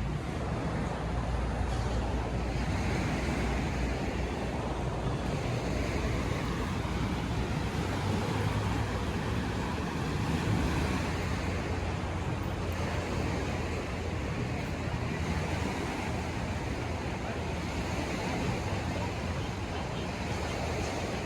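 Steady rushing water noise with a low rumble from wind on the microphone.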